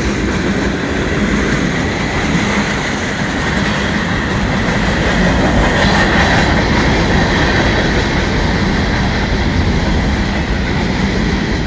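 Empty autorack cars of a freight train rolling past: a steady rumble and clatter of steel wheels on the rails.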